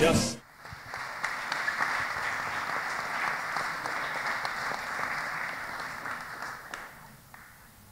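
Audience applauding, starting just after a song cuts off and dying away near the end.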